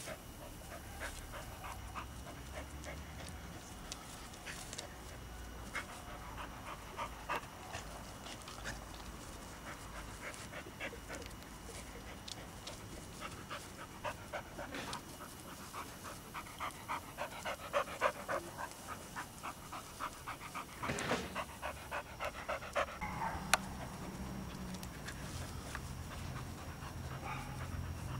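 A dog panting rapidly and rhythmically, about four breaths a second, while playing with a ball, heaviest in the middle of the stretch.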